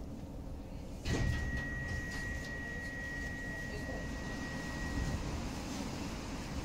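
Inside an EG2Tv Ivolga electric train standing at a station: a clunk about a second in, then a steady high-pitched beep held for about four seconds, the train's door-closing warning signal, over a low rumble.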